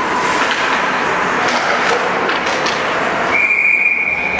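Ice hockey rink noise of skates, sticks and puck, with a few sharp clicks. Near the end a referee's whistle gives one long, steady blast that stops play.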